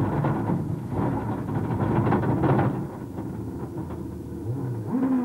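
World Rally Car engine at high revs with gravel and tyre noise, heard onboard. About three seconds in the noise drops away to a lower, quieter running, and near the end the engine note rises briefly and holds.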